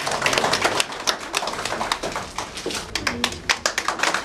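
An audience applauding: an irregular patter of many hands clapping.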